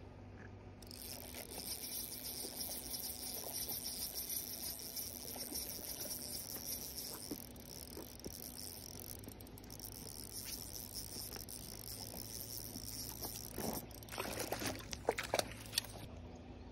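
Small spinning reel being cranked on a retrieve, a steady high whir starting about a second in and stopping near the end. Near the end come a few louder knocks and splashes.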